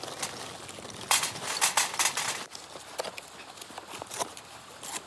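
A paper sack being emptied into a small sheet-metal grill, its contents clattering onto the metal in a quick rattling run about a second in, followed by a few scattered knocks.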